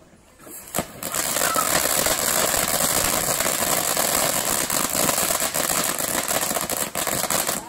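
Zombie Apocalypse consumer firework igniting about a second in with a short pop, then a loud steady hiss of sparks spraying out.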